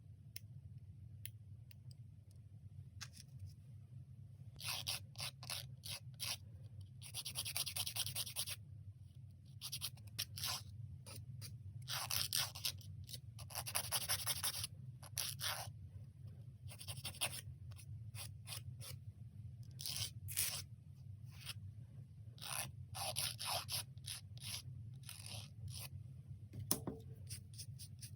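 Manicure tools scraping and rubbing at fingernails in short bouts of strokes, with many small sharp clicks between them, over a steady low hum.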